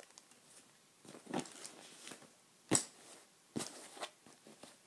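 Handbag being handled: soft rustling broken by a few sharp clicks and knocks, the loudest a little under three seconds in.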